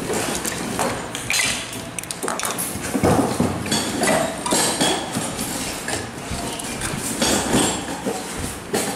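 Irregular knocks, clicks and clinks of the plastic and metal parts of a table-top electric cloth cutter being handled and set down on a hard floor; the cutter itself is not running.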